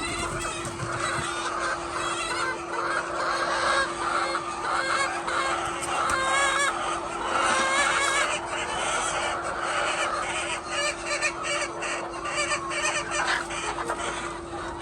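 Many hens clucking and calling at once, their calls overlapping without a break, over a steady hum.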